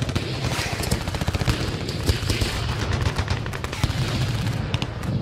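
Logo-intro sound effect: a dense, rapid run of sharp cracks over a low rumble.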